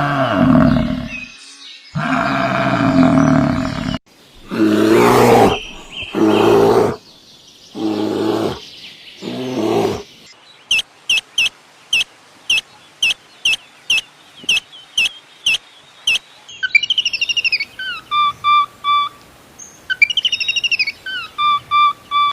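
Sheep bleating several times, followed by a bird chirping in a steady run of short high chirps about two a second, then whistled bird calls with falling notes.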